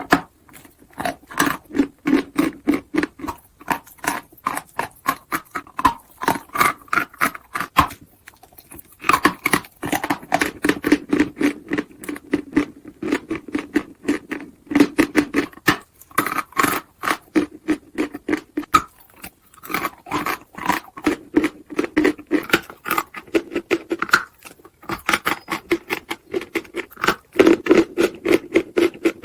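Chalk being crunched and chewed close to the microphone: rapid crisp crunches, several a second, in long runs broken by short pauses about every eight seconds.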